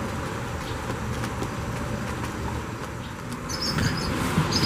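Open-air ambience with a steady low rumble of wind noise on the microphone. A few short, high chirps come in about three and a half seconds in.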